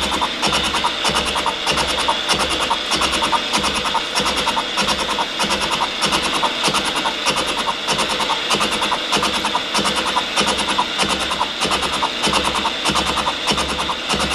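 Brown & Sharpe No. 2 universal milling machine face-milling with a 5-inch carbide-tipped shell mill turning at about 95 rpm: a steady, rhythmic chatter of the carbide inserts striking the work, with a heavier beat about one and a half times a second, once per turn of the cutter.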